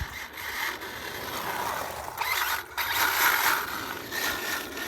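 HPI WR8 Flux electric RC rally car's brushless motor and gear drivetrain whirring as it drives, surging loudest about two to three seconds in.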